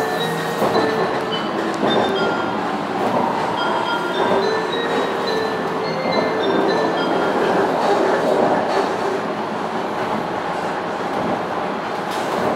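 Cabin noise of a Tokaido Shinkansen train on the move: a steady rumble of wheels and running gear, with brief tones at varying pitches coming and going.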